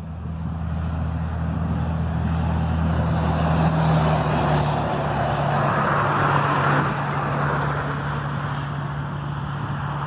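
Motor traffic passing on a highway: a low engine drone for the first few seconds under swelling tyre and road noise, the drone fading about halfway while the rushing noise carries on.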